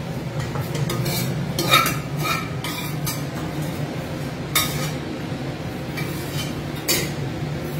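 Metal ladle scraping and clinking against a frying pan while spiced oil is scraped out of it into a steel pot. Several short, sharp clinks stand out over a steady low hum.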